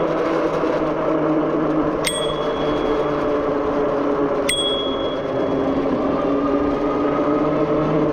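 Zugo e-bike's handlebar bell dinged twice, about two seconds and four and a half seconds in, each a short bright ping that rings out and fades. Under it is the steady hum of the e-bike underway.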